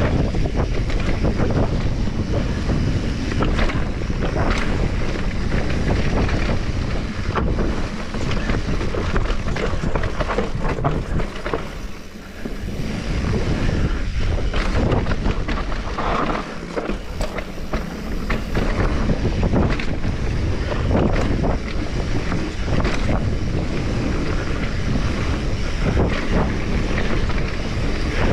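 Wind buffeting the microphone during a mountain-bike ride: a loud, steady rush with frequent short knocks and rattles, briefly quieter about twelve seconds in.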